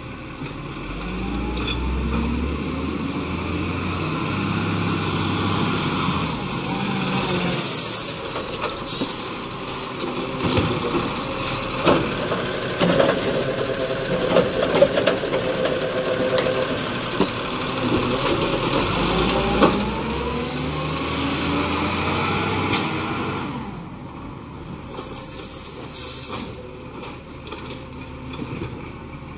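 Garbage truck's engine running and revving up a few times, with hisses of released air about eight seconds in and again near the end, and a few sharp knocks.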